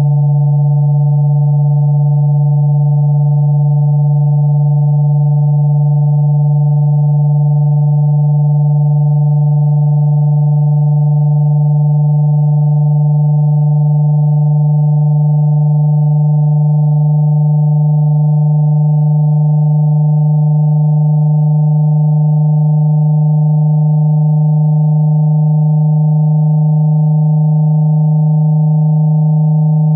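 Steady synthesized electronic tone, a waveform computed from the coordinates of a Möbius strip: a strong low hum with four fainter higher tones above it, holding unchanged.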